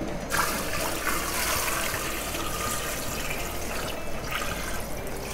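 Water poured from a stainless-steel saucepan into a large stockpot that already holds water, a steady splashing pour that starts just after the beginning and tapers off about four seconds in.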